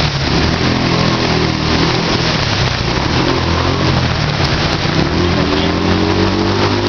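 Heavy rain and traffic on a flooded street: a steady rush of rain and water with the low hum of vehicle engines, one rising gently in pitch about four seconds in as it pulls through the water.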